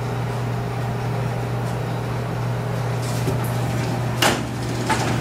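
Steady low ventilation hum of a lab wet-bench hood, with a few sharp clicks and knocks in the second half as the clamped circuit boards are lifted out of the plating tank and handled.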